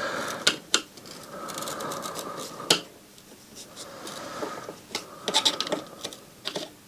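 Hand work on a stereo receiver's parts during disassembly: scattered clicks and light scraping. The sharpest click comes a little under three seconds in.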